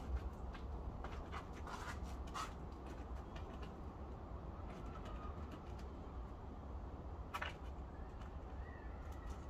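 A few sharp metallic clicks and scrapes of a hand tool working loose staples from a wooden board, the loudest just after the start and another about seven seconds in, over a steady low rumble. Faint bird calls sound in the background.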